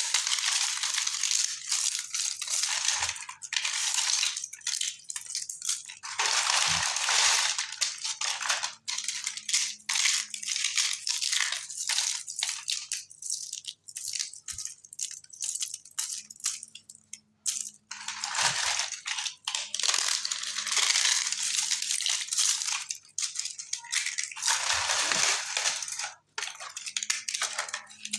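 Dry multani mitti (Fuller's earth clay) being crushed and crumbled: a dense, crisp crackling crunch that comes in bursts of a few seconds with short pauses between them.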